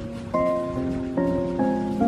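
Background music: a calm melody of sustained notes, three struck in turn and each fading slowly, over a steady hiss of rain.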